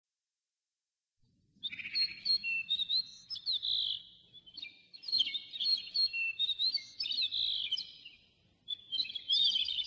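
Songbird chirping in quick, high notes and short sliding calls, in three runs of song, starting after about a second and a half of silence.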